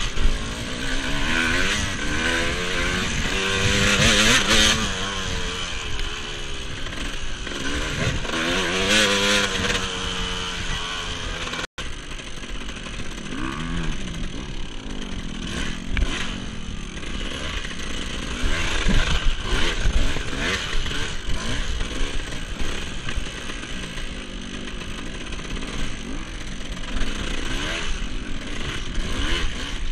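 Off-road racing motorcycle engine revving up and down again and again under changing throttle, over a steady rushing noise and a few short knocks. The sound cuts out for an instant about twelve seconds in.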